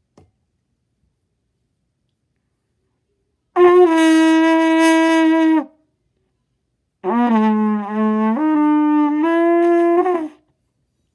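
Trumpet blown: one held note for about two seconds, then after a short pause a longer blast that starts low and steps up through two higher notes.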